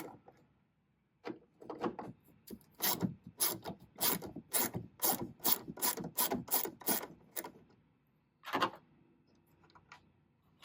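Ratchet with an 8mm socket backing out a tail light assembly screw: a steady run of sharp ratcheting clicks, about three a second, for several seconds, then one more burst near the end.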